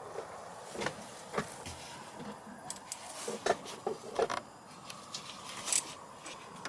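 Irregular light knocks, clicks and clatter of objects being handled, loudest in a cluster about three and a half to four and a half seconds in, over a steady faint background hiss.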